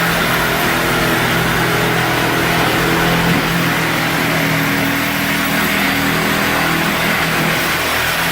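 A loud motor-driven power tool running steadily, its motor pitch holding with only small shifts.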